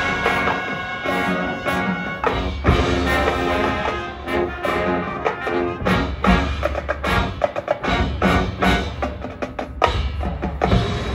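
High school marching band playing: brass and winds hold chords over drums, then from about halfway through the band plays a string of short, punched hits with the percussion.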